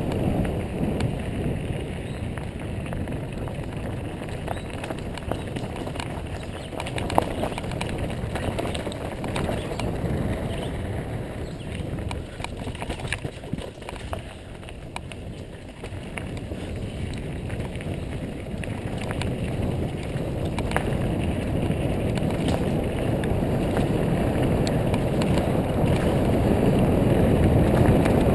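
Wind rushing over the microphone and tyres rolling over a dirt trail on a downhill mountain bike descent, with scattered clicks and rattles from the bike. The rush eases off around the middle and builds again toward the end as speed changes.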